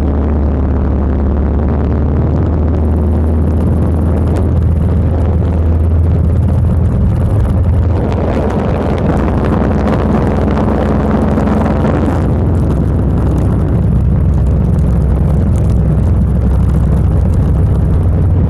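Motorcycle engine running steadily while riding at road speed, with rushing wind noise that swells for a few seconds in the middle.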